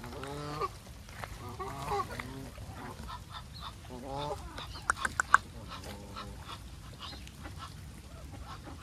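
Geese honking several times, each call short with a bending pitch. A quick cluster of three sharp, loud short sounds comes about five seconds in.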